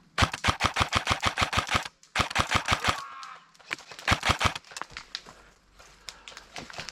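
Airsoft gun firing in full-auto bursts of rapid, evenly spaced shots, about nine a second. A burst of nearly two seconds is followed by two shorter bursts, then scattered fainter clicks.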